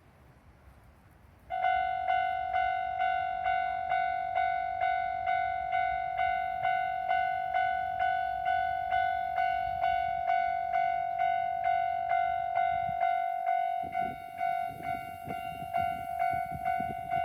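Level-crossing warning alarm starts about a second and a half in: the standard Japanese electronic crossing bell, ringing about twice a second. Near the end a train's low rumble and wheel clatter come in beneath it.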